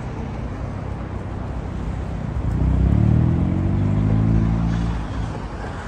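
A car engine revving up about two seconds in, its pitch rising and then holding as it drives past, fading near the end, over a low hum of city traffic.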